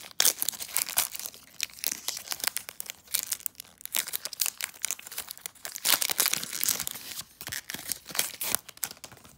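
Foil wrapper of a Pokémon XY Breakthrough booster pack being torn open and crinkled by hand: a run of irregular crackles and rips, with the sharpest tears just after the start and about six seconds in.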